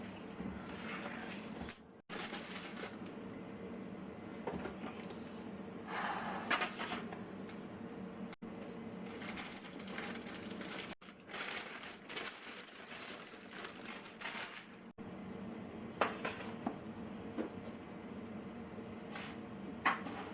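Household handling sounds: objects being moved, set down and rustled, over a steady low hum. The sound drops out abruptly several times.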